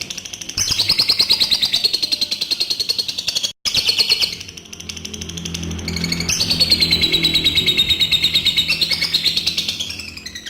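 Adult lovebird 'ngekek': long, fast chattering trills of high chirps in two bouts, the first starting about half a second in and breaking off abruptly, the second running from about six seconds in until near the end. Background music plays underneath.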